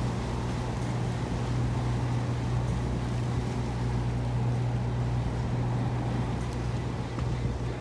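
Steady low hum of a moored boat's engine idling.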